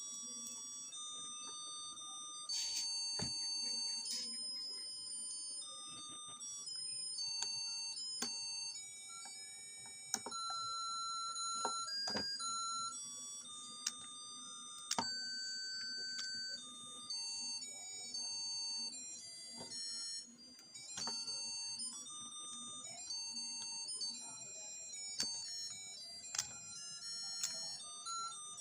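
A simple electronic melody of single beeping notes stepping up and down, like a toy or novelty-light music chip, over a low steady hum, with a few sharp clicks.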